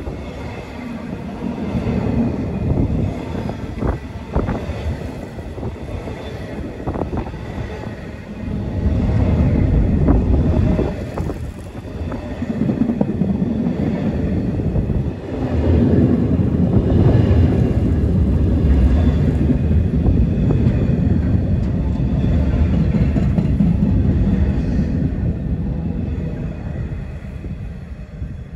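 A train passing close by: a loud, dense rumble with scattered knocks, swelling and easing, then fading away near the end.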